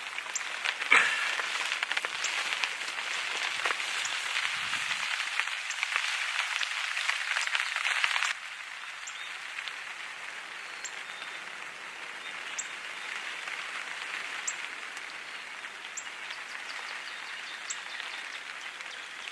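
Steady rain falling, a hiss dotted with small drop clicks. About eight seconds in it drops suddenly to a quieter rain hiss, with single light ticks every couple of seconds.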